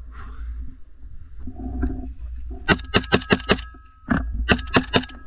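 Kalashnikov-type rifle firing two quick bursts, about seven sharp shots and then about five more half a second later. A low rumble runs underneath.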